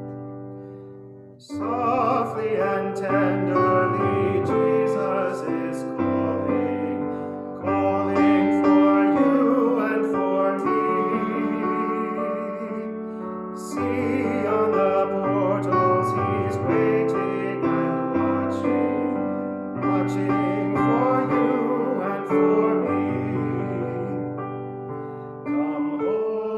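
Hymn music: piano accompanying a singing voice with a wavering vibrato, in phrases that begin about every six seconds.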